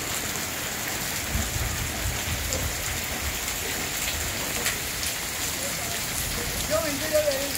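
Heavy rain falling steadily, with individual drops ticking sharply now and then.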